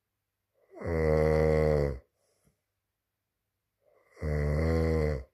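Snoring: two long snores, each about a second long and about three seconds apart, with faint breathing in the pauses between them.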